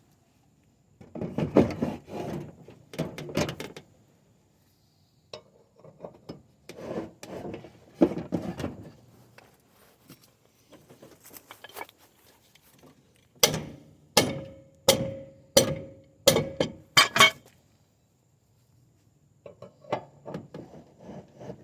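Steel tools clattering against the riding mower's blade and deck while the blade is wedged and its nut tightened, then a run of about seven sharp metal strikes in quick succession, several leaving a short ringing tone.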